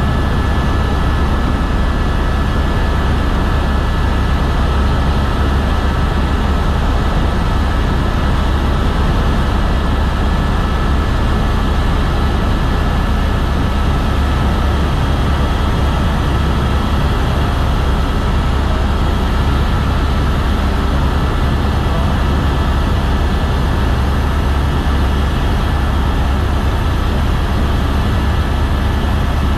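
Helicopter in steady cruising flight, heard from inside the cabin: a constant loud, deep drone with a thin steady whine over it.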